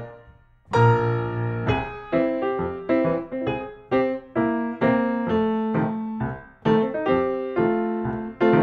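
Piano music: a note dies away into a brief lull, then a chord is struck about a second in and a run of notes and chords follows.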